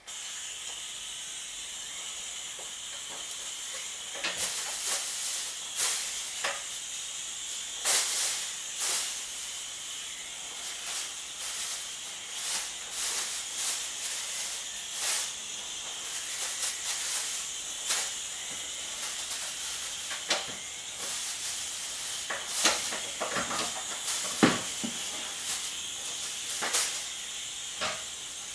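Steady high hiss of a pest-control sprayer, broken by many short louder bursts.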